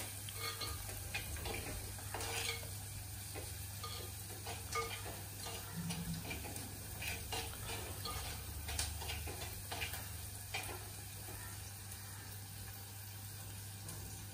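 A steel spoon stirs and scrapes inside an earthenware clay pot on a gas flame, over a light sizzle of food frying. Irregular clicks of the spoon against the pot die away near the end.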